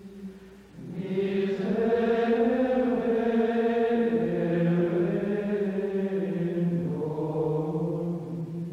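Male voices singing Gregorian chant: a slow melody of long held notes. It dips briefly just before a second in, then comes back fuller and brighter.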